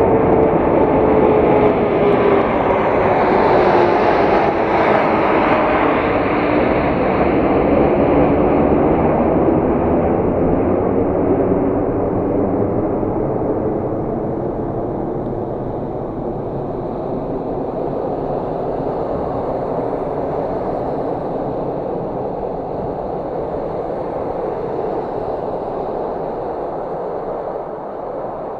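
Boeing 787-9 jet engines at takeoff power as the airliner passes and climbs away. Several tones fall in pitch over the first few seconds, then a steady engine noise slowly fades.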